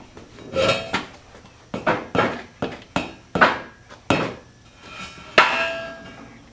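Metal striking steel about nine times at an uneven pace, several blows leaving a short metallic ring.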